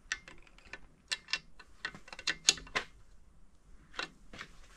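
Irregular metallic clicks and taps of hand tools working the threaded adjusting sleeve on a BMW S63 oil pump, dense for about three seconds, then one more click about four seconds in. The sleeve is being turned to move the pump up and tension its slack drive chain.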